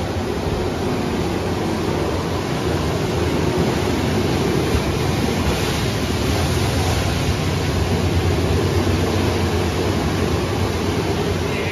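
Steady, loud rushing roar of a Kenworth T800 vacuum truck's suction, pulling sediment and trash out of an oil/grit separator chamber. It grows a little louder a few seconds in.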